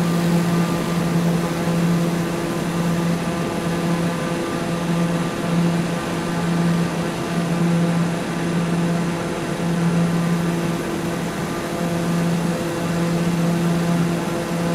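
Steady machine drone at a constant low pitch with even overtones, the level wavering slightly but never stopping.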